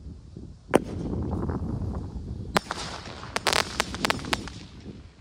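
Consumer aerial fireworks going off: a sharp bang about a second in, a single crack a couple of seconds later, then a quick run of crackling pops.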